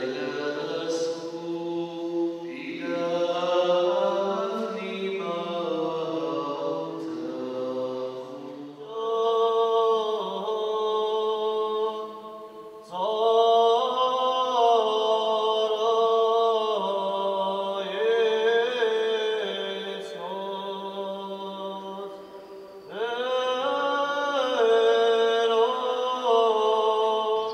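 Sung chant in long held, slowly stepping notes. Lower voices carry the first several seconds, then higher voices take over in phrases that break off briefly about twelve and twenty-two seconds in.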